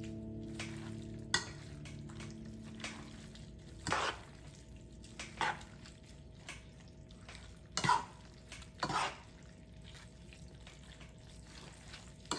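Short, scattered scrapes and clinks of dishes and utensils, about half a dozen spread out with quiet between them. A held music chord fades out over the first two seconds.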